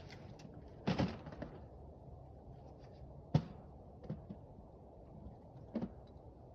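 A few scattered knocks and clicks of gear being handled: a double thump about a second in, a sharp click a little after three seconds, and another double thump near the end, over a faint steady hiss.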